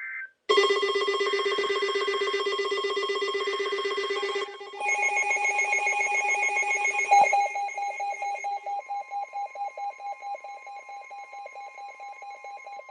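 Electronic emergency alert tone: a rapidly trilling, ring-like chord that switches to a different chord about four and a half seconds in, then breaks into quick pulses, about four a second, that fade away.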